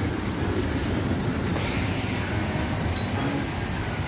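Amusement-park ride machinery running: a steady rumble with a hiss over it.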